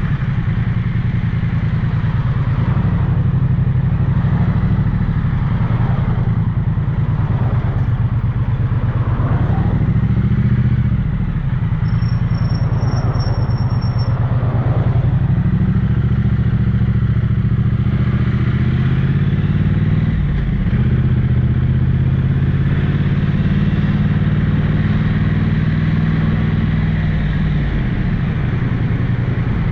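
Triumph 900cc parallel-twin motorcycle engine and exhaust running under way, heard from the rider's position. The engine note holds steady for long stretches and drops and shifts in pitch about a third of the way in and again past the middle, as the throttle is eased and the gears change.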